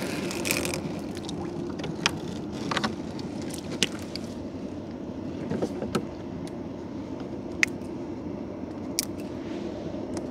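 Small boat engine running steadily, with scattered sharp clicks and knocks, about seven in all.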